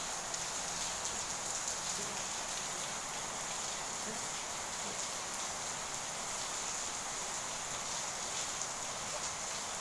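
Steady hissing background noise with faint scattered ticks.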